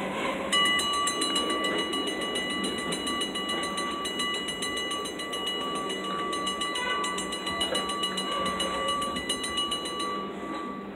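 Railroad grade-crossing bell ringing in a fast, even run of strikes, starting about half a second in and stopping near the end, over the low rumble of an approaching train.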